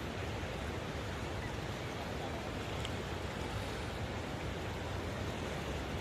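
Steady rushing of high floodwater pouring through a river weir's fully opened gates, an even unbroken roar with a low rumble underneath.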